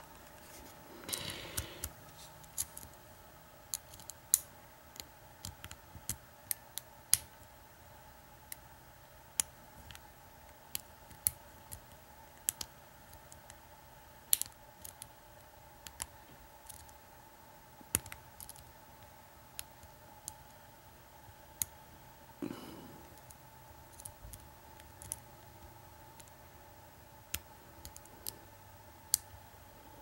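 Small metallic clicks and scrapes of a lock pick and tension wrench working the keyway of an American 2500 six-pin puck padlock during picking. The clicks come irregularly, about one to two a second, with a longer scrape about a second in and another about three quarters of the way through.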